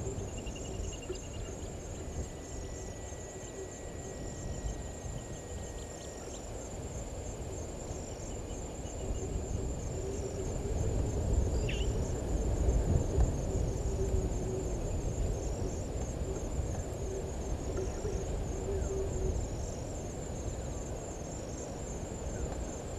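Insects trilling steadily in a high, pulsing chorus. Beneath it runs a low rumbling background noise that grows louder around the middle, and a single short chirp comes about halfway through.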